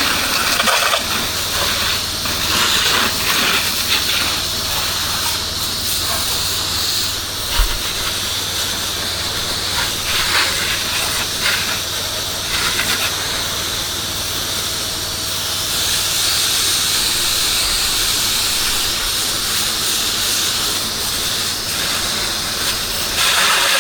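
Pressure washer spraying a steady high-pressure jet of water, a continuous hiss over a low steady hum, with one brief thump a little under eight seconds in.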